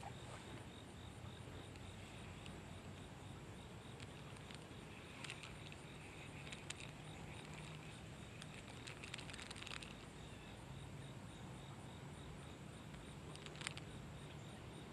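Faint outdoor ambience: insects chirping in a steady, fast-pulsing trill over a low steady hum, with a few faint clicks.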